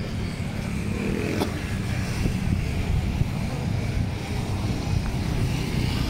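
Steady low rumble of city street traffic: car and motorcycle engines running on the road alongside.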